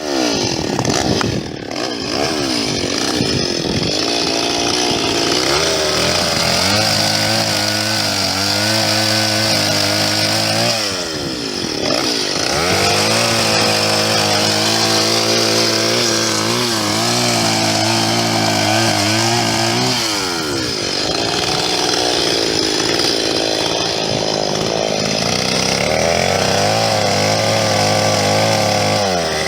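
Chainsaw running and being revved. Its pitch sweeps up and down in the first few seconds, holds steady at high speed for stretches, dips briefly about eleven seconds in, and wavers again past the twenty-second mark before settling once more.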